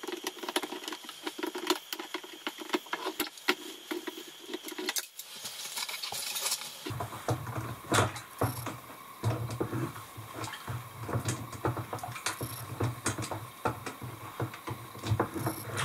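A hand splashing in shallow standing water on a shower floor, with repeated small clicks and knocks as it works a test plug loose in the drain. From about seven seconds in, a steadier low gurgle joins as the flood-test water begins to drain.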